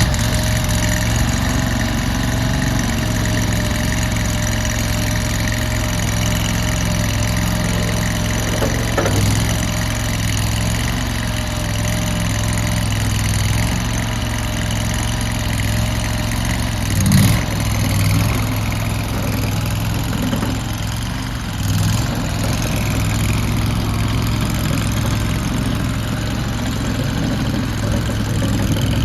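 Gas engine of a compact Landhero skid steer loader running steadily just after start-up, growing briefly louder three times.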